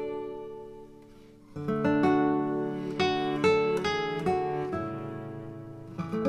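Background music on acoustic guitar, plucked and strummed notes ringing out; it dies down about a second in, then picks up again.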